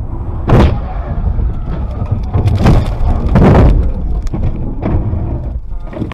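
Vehicle running with a steady low rumble, broken by several heavy thumps about half a second, two and a half, three and a half and five seconds in.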